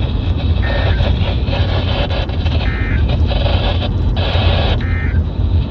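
Three short bursts of Emergency Alert System SAME data tones, the screechy digital warble sent over NOAA Weather Radio, about two seconds apart. They sound under steady radio static and a low hum.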